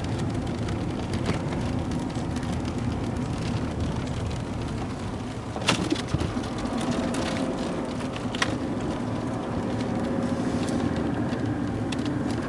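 A Jeep driving on snow-covered roads, heard from inside the cabin: steady engine and road rumble from its all-terrain tyres. A few sharp clicks or knocks stand out, the loudest just under six seconds in and another about eight and a half seconds in.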